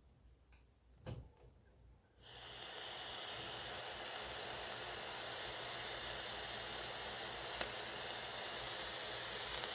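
A short click about a second in, then a steady hiss from the speaker of a Shaeco WS-930P cassette radio boombox, running for several seconds.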